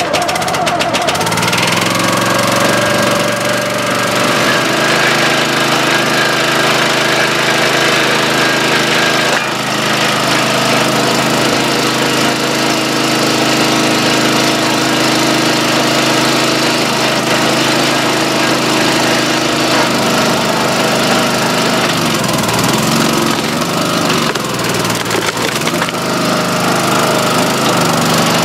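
Small gas engine of a 25-ton hydraulic log splitter running steadily, its note shifting a few times as the splitter works.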